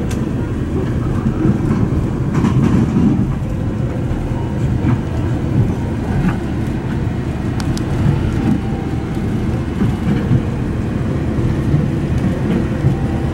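Steady low rumble of a passenger train car rolling along the track at speed, heard from inside the car, with a few faint clicks.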